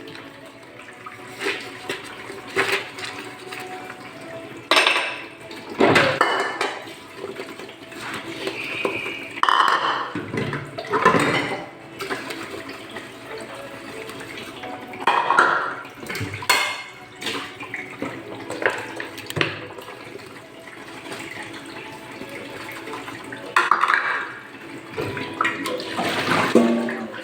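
Dishes being washed by hand at a sink: running water with irregular clinks and clatters of plates and cutlery.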